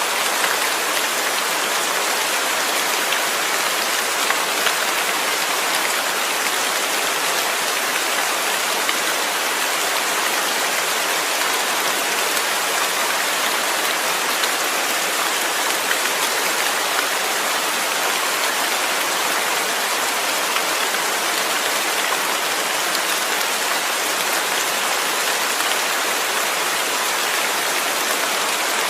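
Steady rain falling: an even, unbroken hiss that neither builds nor eases.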